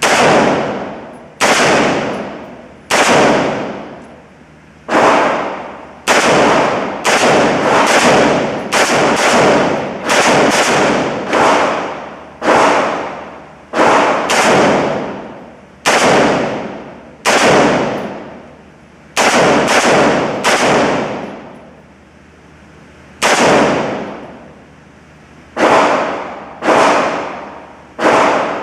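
Gunshots at a shooting range: about two dozen single shots fired at an uneven pace, sometimes in quick runs of two or three and sometimes a second or more apart, each trailing off in a long echo.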